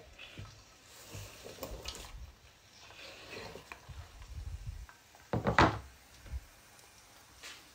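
Chopped vegetables being scraped off a plastic cutting board into a stainless steel pot of oil, with scattered light scrapes, soft drops and knocks. A louder clatter of the board against the pot comes about five and a half seconds in.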